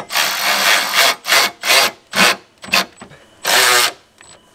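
Cordless Milwaukee drill with a socket extension driving down the bolts of an auxiliary battery clamp. One run of about a second, then four short bursts and a final longer run near the end.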